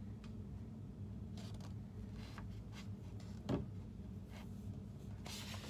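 Quiet room tone with a steady low hum and faint rustling, broken by one short soft knock about three and a half seconds in.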